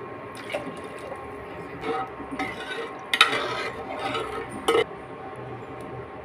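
A spoon stirring and scraping in a pot, with a series of irregular sharp clinks of metal on metal; the loudest come about three and just under five seconds in.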